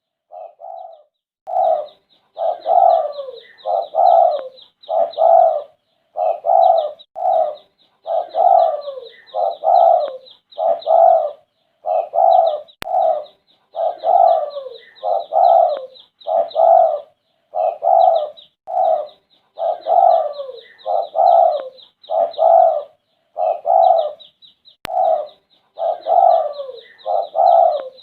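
Red-eyed spotted dove (derkuku) cooing in repeated phrases with short pauses between them. A faint, rapid high chirping runs underneath.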